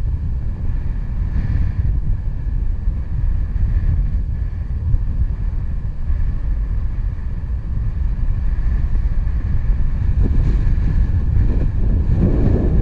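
Wind buffeting the camera's microphone: a steady low rumble that gusts stronger near the end.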